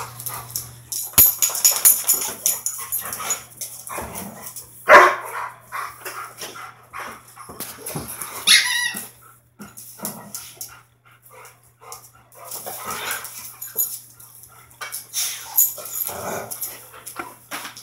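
Two dogs, an Anatolian shepherd and a second, smaller dog, play-fighting over a rope toy on a tile floor: barks and other dog vocalizing mixed with scuffling, coming in irregular bursts, loudest about five seconds in, with a high call around eight seconds.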